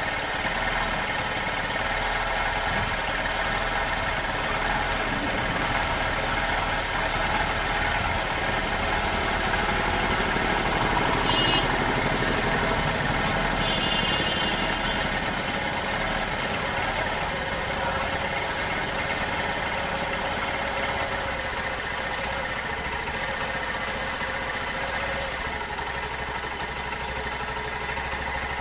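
A Hero Passion Pro BS6's single-cylinder fuel-injected engine idling steadily while its idle speed is set by turning the throttle body's RPM screw with an Allen key. It gets slightly louder towards the middle and then gradually eases down.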